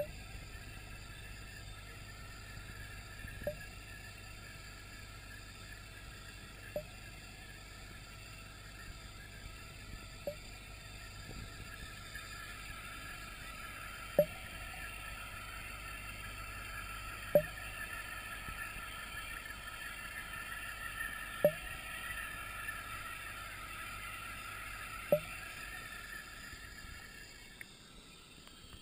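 Steady hum of aquarium equipment heard underwater through a camera housing, with a sharp click about every three and a half seconds, seven in all. The hum fades near the end.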